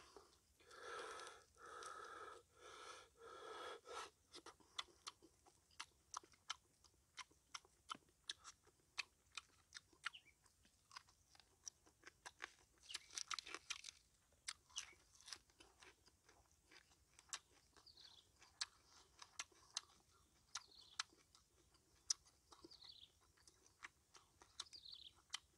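Close-up mouth sounds of a person eating grilled fish: a run of steady, rhythmic chews for the first four seconds, then many short, sharp crunches and clicks of chewing and picking at the fish.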